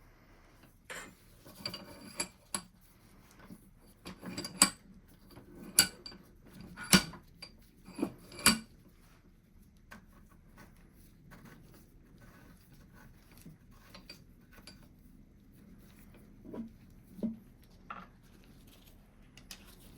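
Steel parts and hand tools clinking and knocking against each other and the bench as a vise is reassembled: a run of sharp, ringing metallic knocks in the first half, then a few softer knocks near the end.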